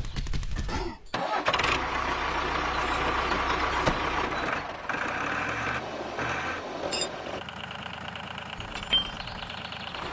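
Tractor engine sound starting about a second in and then running steadily, dropping somewhat in level for the last couple of seconds.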